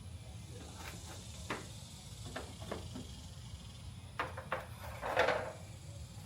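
Scattered light knocks and clicks of a part being handled, with a brief louder scraping rustle about five seconds in, over a steady low hum.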